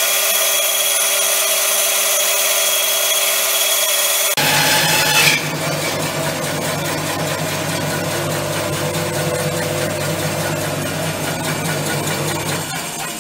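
Jet variable-speed bandsaw resawing a log of mulga, a very hard wood, with a shop vacuum running for dust extraction: a steady, loud sawing and motor noise. The sound changes abruptly about four seconds in and begins to die away at the very end as the cut finishes.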